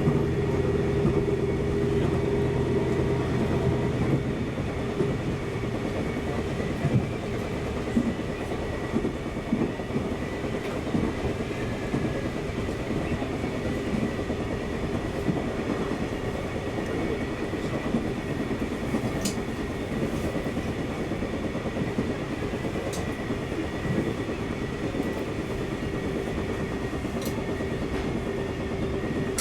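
Shinkansen train running steadily on the rails: a constant hum and whine over running noise, with light clicks. A deeper rumble drops away about four seconds in.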